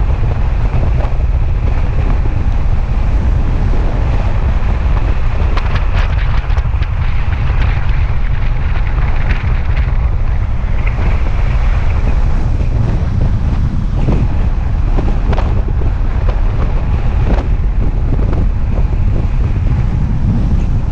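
Strong wind buffeting the microphone: a loud, steady low rumble, with a few short knocks.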